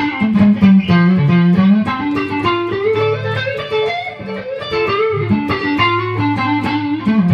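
Clean electric guitar, a Squier Stratocaster Deluxe on its neck pickup, playing a picked melodic line over low bass notes through a diode-bridge compressor pedal into a Mesa/Boogie Mark Five:25 amp on its clean channel.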